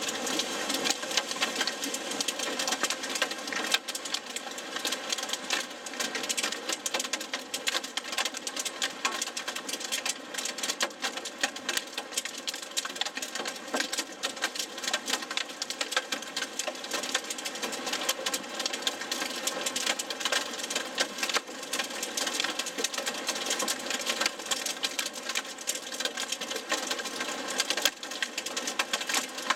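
Heavy rain and hail from a supercell core pelting the roof and windshield of a vehicle, heard from inside the cabin as a dense, continuous clatter of impacts.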